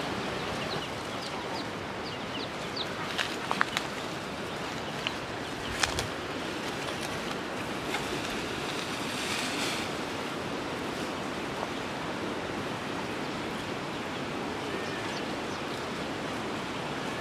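Steady outdoor hiss with a few sharp knocks of wooden poles being handled and tied into a shelter frame, the loudest about three and a half and six seconds in. Brief high bird chirps come in the first few seconds.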